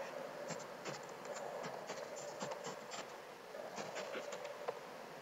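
Computer keyboard keys clicking in quick, irregular runs of typing, over a faint steady hum.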